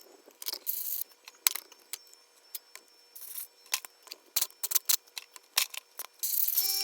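Scattered light clicks and short rattles, like small hard objects being handled, over a faint steady hum; a louder steady hiss starts near the end.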